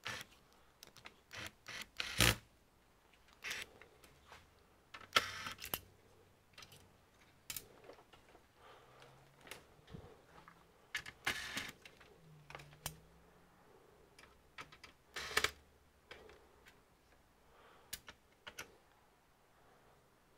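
Irregular clicks, taps and short scraping rattles of hands and tools working on the plastic and metal parts of an all-in-one computer being taken apart. The loudest come near the start and around the middle.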